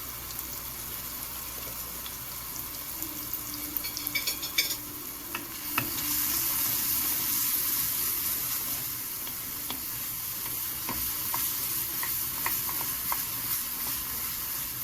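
Onion, tomato, garlic and freshly added spices sizzling in hot oil in a Korean bowl while being stirred, with scattered clicks and scrapes of the stirring utensil against the bowl. The sizzle grows louder about six seconds in.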